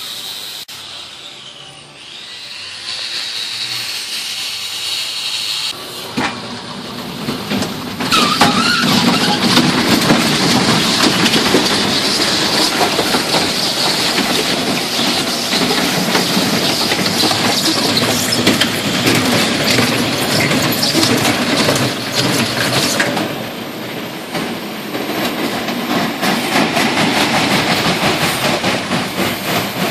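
Small kiddie roller coaster train running along its steel track, wheels rumbling and squealing, under a steady grinding of metal from a fence being repaired. The noise grows much louder about eight seconds in and eases a little near the end.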